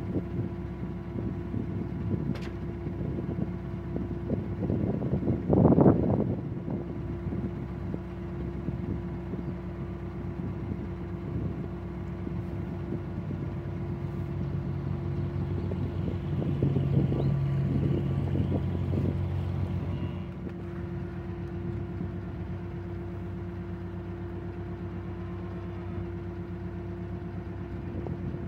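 Narrowboat engine running steadily under way. About six seconds in there is a short, loud burst of sound, and from about 14 to 20 seconds in a second boat's engine is heard as another narrowboat passes close by.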